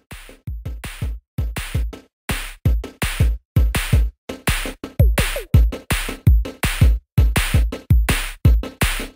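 Background music: an electronic drum-machine beat with deep kick-drum thuds, in a choppy, stop-start rhythm with short gaps of silence.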